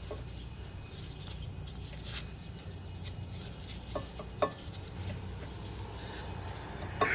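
Light metallic clicks and taps as brake parts are handled and fitted at a car's rear brake caliper, two small clicks about four seconds in and a louder knock near the end, over a steady low hum.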